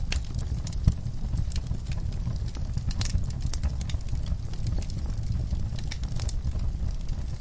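Wood fire in an outdoor firepit crackling, with irregular small pops and snaps over a steady low rumble.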